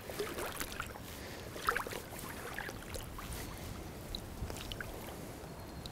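Lake water sloshing and splashing around a person's legs as he wades slowly in chest waders, with small, irregular splashes.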